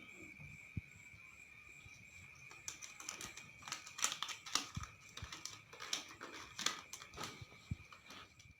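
Equipment being handled and set out for a cough-technique lesson: irregular clicks, knocks and rustling that start about three seconds in and go on to the end. A steady high whine runs underneath throughout.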